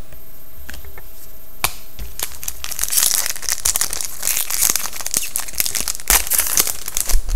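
Foil wrapper of a hockey card pack crinkling and tearing as it is ripped open by hand, starting about two seconds in after a single sharp tick.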